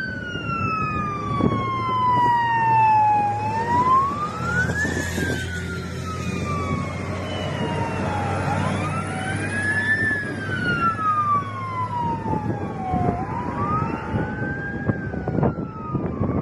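Fire truck sirens wailing, at least two out of step, each gliding slowly up and down every few seconds. A steady low engine drone runs underneath.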